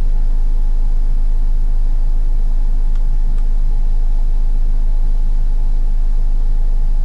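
Steady, loud, low electrical hum on the voice-over recording, with two faint clicks about three seconds in.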